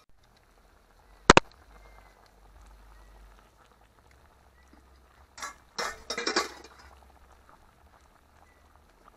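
Metal cooking pot and lid clinking: one sharp clank about a second in, then a short burst of clinks and scraping about six seconds in.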